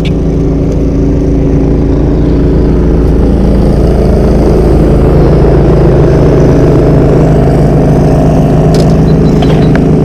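Boat outboard motor running at a steady pitch, getting louder over the first few seconds and then holding, with a couple of light knocks near the end.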